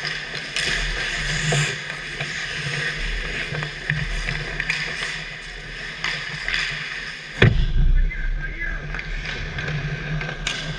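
Ice hockey play heard from right at the goal: skate blades scraping the ice and sticks clacking, with one loud sharp knock about seven and a half seconds in.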